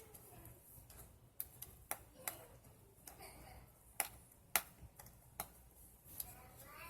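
Scattered sharp clicks and taps from handling craft tools and paper at a desk, about eight at uneven intervals, the loudest a pair about four and four and a half seconds in.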